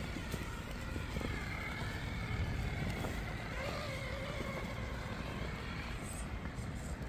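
Axial Wraith RC rock crawler's Fusion 1800 brushless motor and geared drivetrain whining as it climbs a rock on a 2S battery, the pitch rising and falling with the throttle, over a steady low rumble.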